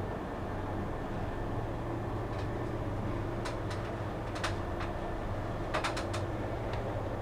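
A steady low mechanical hum. Over it come a few light clicks and taps, with a quick cluster of three or four about six seconds in.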